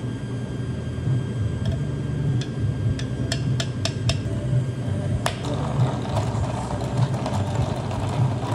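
Iced café mocha being poured from a plastic pitcher down a bar spoon onto iced milk: a run of sharp clinks of ice and spoon against the pitcher, then the splash and trickle of the pour, over a steady low hum.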